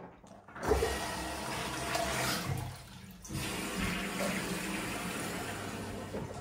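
Toilet flushing: a rush of water, a brief dip about three seconds in, then water running on steadily.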